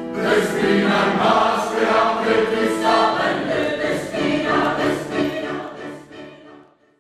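A chorus of many voices singing together in sustained chords; the singing fades out near the end.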